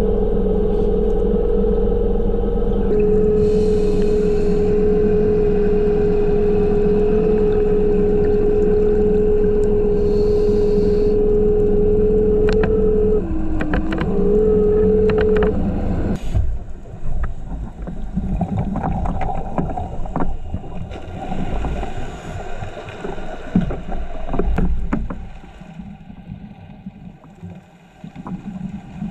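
Diver propulsion vehicle's electric motor running underwater with a steady whine; its pitch dips briefly, and the motor cuts off about halfway through. Irregular clicks and rustles follow, with short bursts of hiss from the diver's exhaled regulator bubbles every several seconds.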